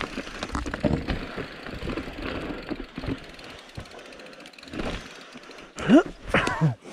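Calibre Sentry mountain bike descending a rough downhill trail: the frame and tyres rattle and knock over the ground, and the rear hub ratchets while coasting. Near the end there is a short rising squeal.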